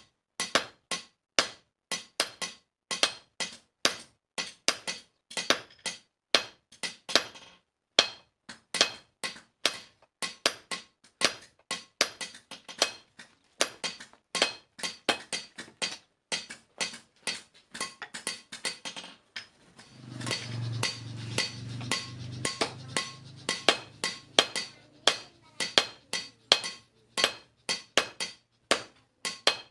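Hand hammer striking iron on an anvil while forging a spade blade: quick, even blows, about two to three a second, each ringing metallically, with brief pauses. About two-thirds of the way through, a low hum joins in for a few seconds.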